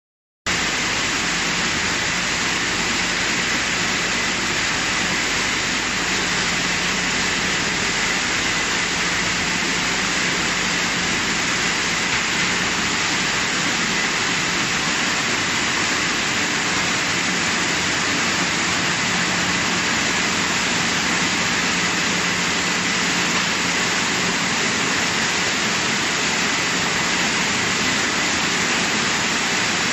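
Continuous vegetable blanching and cooling machine running: a steady rush of churning, bubbling water in its tank, with a steady machine hum under it.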